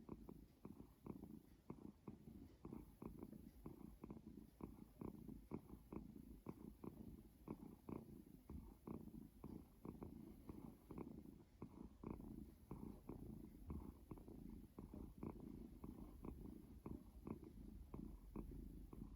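A cat breathing heavily and quickly while resting, a quiet, quick, even rhythm of rasping breaths with a purr-like rumble. This is heavy breathing at rest, which the owner says is constant for her and slow to settle.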